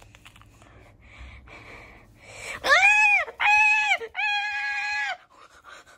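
A high human voice lets out three long wails, each held steady and then dropping off, the last the longest, after a few faint hushed noises. It is someone voicing a toy character's screams.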